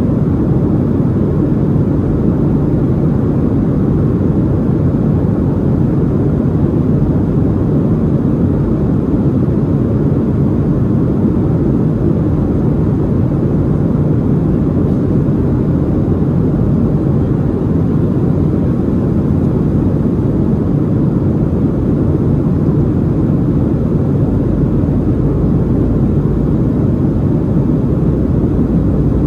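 Steady low cabin noise inside a Boeing 737-700 on approach: its CFM56-7B engines and the airflow over the fuselage, heard as an even, unchanging rumble.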